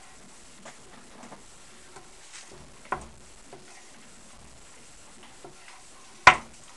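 Wooden butter paddles patting and tapping a lump of freshly made butter and knocking against the work surface: scattered light pats, a sharper knock about three seconds in and a louder one near the end.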